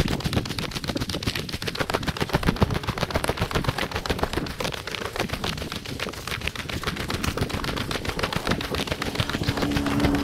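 Dense, rapid rattling and knocking from a body-worn camera jostling with each stride while running on pavement, mixed with running footsteps. A low steady hum joins near the end.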